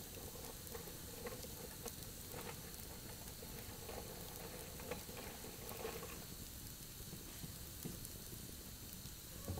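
Wood campfire burning: a steady crackling hiss with scattered sharp pops.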